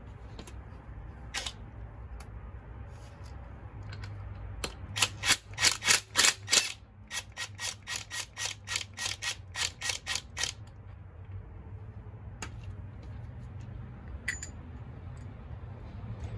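Cordless impact driver hammering on a bolt in a scooter's front fork tube: two runs of sharp, evenly spaced blows, about five a second, the first about five seconds in and the second from about seven to ten seconds in. A few single tool clicks come before and after.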